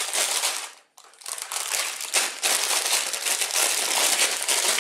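Sealed plastic bags of LEGO pieces being handled and crinkled. The crinkling drops out briefly just before a second in, then carries on.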